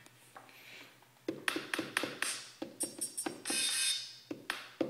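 Electronic drum beat played on a Native Instruments Maschine. After about a second of quiet, a run of sharp percussive hits sets in, with a brief bright hiss near the middle.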